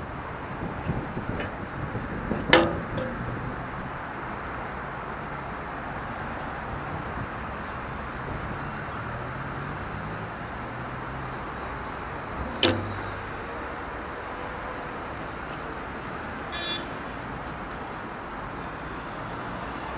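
Steady city street traffic noise: cars running and passing, with two sharp knocks that stand out, about two and a half seconds in and again near the middle, and a brief high tone near the end.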